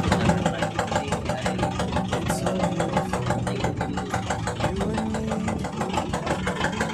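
An engine idling steadily with a fast, even chugging.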